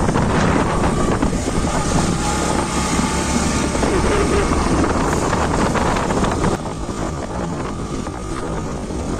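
Motorbike engine running during a ride, heavily buffeted by wind on the microphone. The sound drops abruptly a little about two-thirds of the way through.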